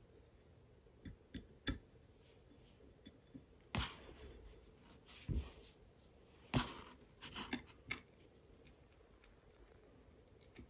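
Faint, scattered metallic clicks and scrapes of a screwdriver bit working a tight small screw in a steel rifle receiver. The screw head is slightly stripped and the threads are dirty. The clicks are irregular, with the sharpest about four seconds in and again a little after six seconds.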